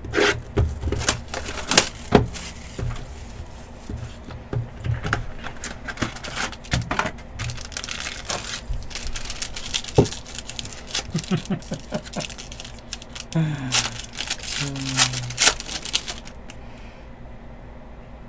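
Trading cards and their pack wrappers being handled: a run of sharp clicks, taps and rustles as packs are opened and cards are flipped through and set down. The handling dies away shortly before the end.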